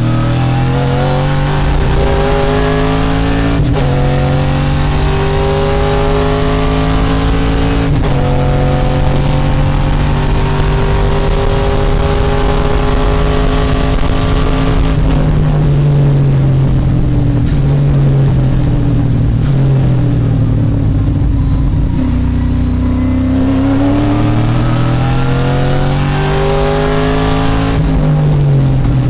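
TA2 race car's V8 engine heard from inside the cockpit at full throttle, pitch climbing through the gears with upshifts in the first few seconds. About halfway through the pitch falls in steps as the car brakes and downshifts, then climbs again hard with another upshift near the end.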